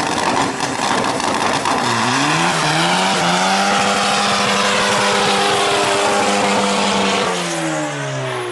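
Car doing a burnout: the engine revs up and is held high and steady while the spinning tires squeal and smoke, then the revs drop near the end.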